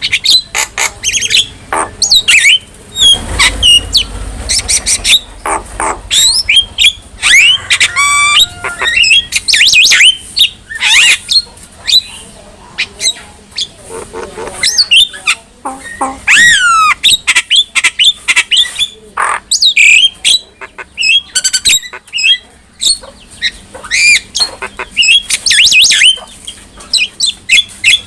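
Javan myna calling: a fast, varied string of harsh squawks, chattering notes and short gliding whistles, with brief pauses between phrases.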